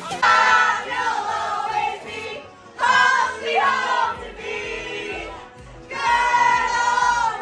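A group of women singing together loudly, in held phrases a second or two long with short breaks between them.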